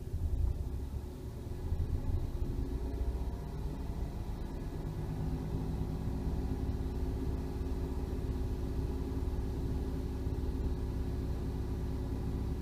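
A Toyota Aygo's 1.0-litre three-cylinder petrol engine is revved up from idle over the first couple of seconds, then held at a steady raised speed.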